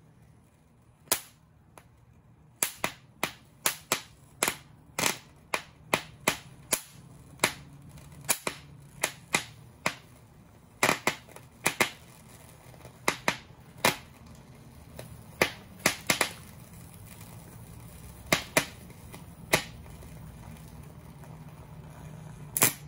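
Salt-water-soaked mains power supply board of a powered Zenith VCR snapping and popping as the brine boils and arcs across the circuit: dozens of sharp pops at irregular intervals, the loudest a double pop near the end, over a low steady hum.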